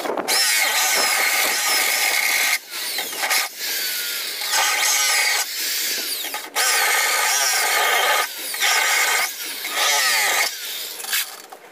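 A power tool running in about eight short bursts of one to two seconds each, stopping and starting again.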